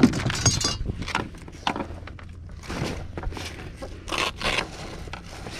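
Zipper of an insulated Hobie fish cooler bag being worked, with scraping and rustling as a fluke goes from the landing net into the bag. It comes as a series of short rasps, the longest about four seconds in.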